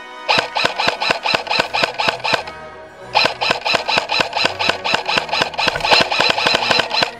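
Electric airsoft gun firing on full auto at about seven shots a second: a steady rattle of the gearbox cycling, with a motor whine over it, in two long bursts with a short pause about two and a half seconds in.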